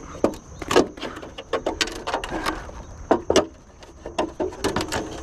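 Irregular clicks and knocks from hands-on repair work, tools and materials being handled.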